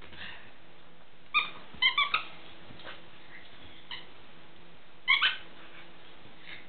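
Squeaker inside a plush raccoon dog toy giving short, high squeaks: one, then three in quick succession, then two more about five seconds in.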